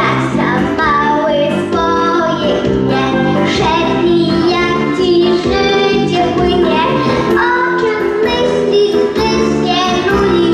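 A young boy singing a song into a microphone over loud instrumental accompaniment.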